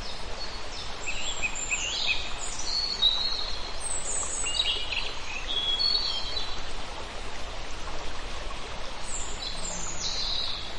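Birds chirping and singing, many short calls and trills, over a steady background hiss.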